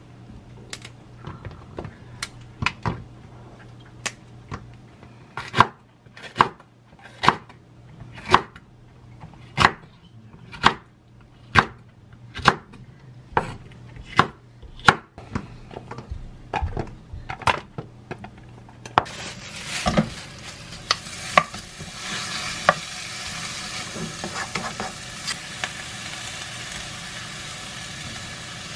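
A chef's knife chopping long green chili peppers on a wooden cutting board, one firm stroke about every second. About two-thirds of the way in the chopping gives way to the steady sizzle of sliced meat frying in a wok, with a few clatters.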